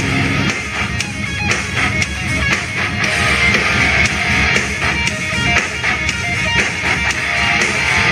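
Guitar music playing loudly through a Boss MC400 motorcycle stereo's two chrome handlebar-mounted speakers.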